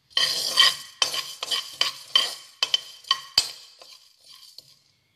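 A metal spoon scraping and stirring coriander and cumin seeds in a hot nonstick pan as they dry-roast. The strokes come about two or three a second and die away over the last second or so.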